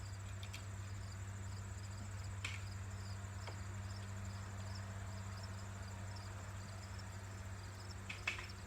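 Crickets chirping in a steady, even rhythm of about three chirps a second over a steady low hum, with a couple of faint clicks.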